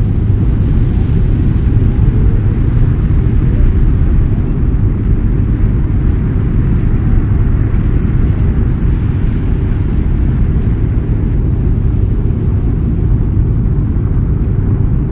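Loud, steady low rumble of a jet airliner's engines and rushing air heard inside the passenger cabin, with the plane on its landing approach and flaps extended.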